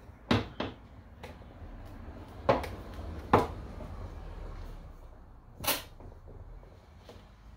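Sharp clicks and knocks of a gas hatch strut's end fitting being lined up and pushed onto its lower mount while the Nissan 370Z's hatch is held up by hand, the loudest knock about three seconds in. A shorter scuffing noise comes near six seconds in.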